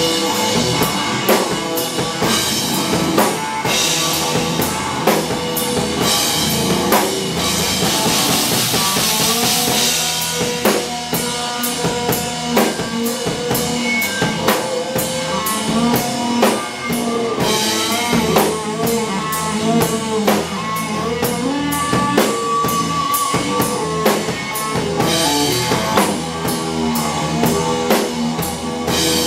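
Live rock band playing: drum kit with bass drum and snare hits under a sustained, wavering fuzz-distorted electric guitar.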